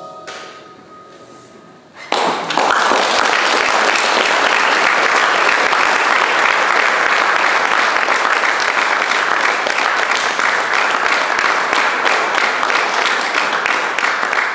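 The last notes of a jazz band fade out, and about two seconds in an audience starts applauding, steady clapping that carries on.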